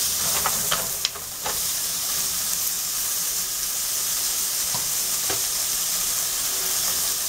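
Frozen chopped onions sizzling in a hot nonstick frying pan with a little oil and cumin seeds, with a few clicks and scrapes of a spatula stirring them, mostly in the first second and a half and twice more around five seconds in.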